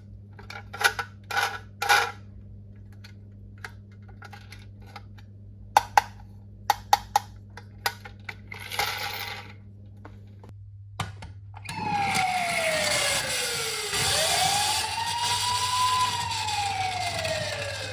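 Sharp clicks and taps from plastic toy vehicles and their packaging being handled, with a brief rustle about nine seconds in. About twelve seconds in, a siren starts wailing, its pitch falling, then rising and falling again.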